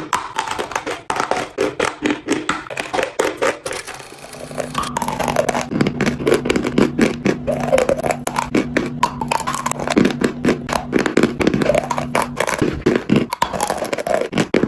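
Wet chalk being crunched and crumbled close to the microphone in rapid, crisp cracks. After a brief lull about four seconds in, a steady low hum runs underneath the crunching until a couple of seconds before the end.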